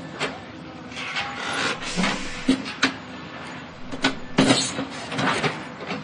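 Machinery demolishing a building: irregular knocks, crashes and scraping of breaking material over a steady mechanical background. The loudest crash comes about four and a half seconds in.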